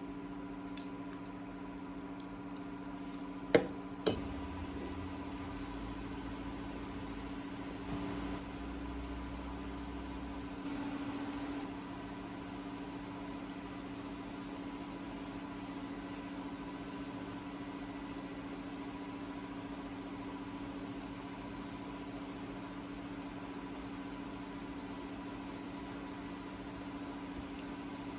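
A steady electrical hum from a running appliance, with two sharp clicks about half a second apart near the start.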